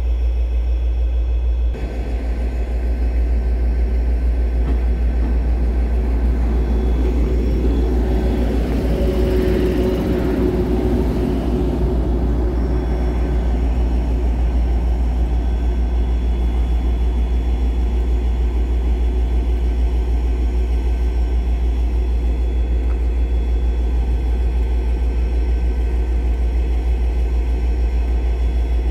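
Steady low rumble of locomotives standing at the platform, a diesel engine idling among them, swelling for a couple of seconds around ten seconds in.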